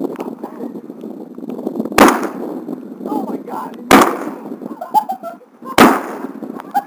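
Three shotgun blasts about two seconds apart.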